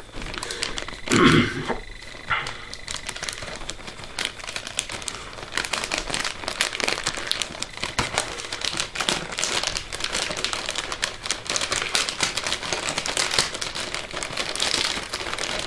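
Christmas wrapping paper being torn and crumpled by hand, a steady crackling rustle with many small clicks, with a louder burst about a second in.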